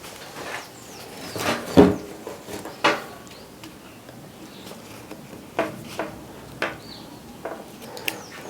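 A series of separate knocks and clunks, the loudest a little under two seconds in, from heavy cable being handled and wound as turns onto a microwave oven transformer's secondary.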